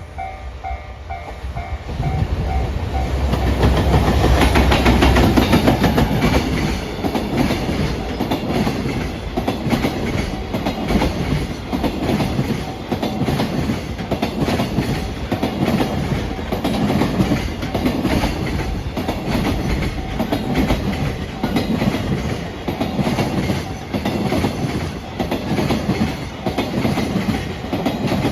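JR Freight EF210-100 series electric locomotive passing with a long train of Koki container wagons: its rumble comes in about two seconds in, then the wagons' wheels clatter over the rail joints in a steady repeating rhythm. At the start the level-crossing bell is ringing, soon drowned out by the train.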